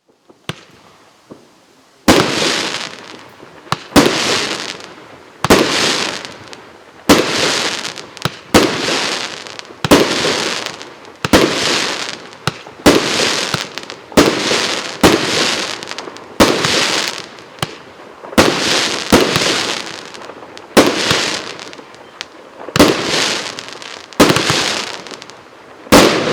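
A 1-inch, 19-shot firework cake firing its shots one after another, about every one and a half seconds, starting about two seconds in. Each shot is a sharp bang followed by a louder burst that fades before the next.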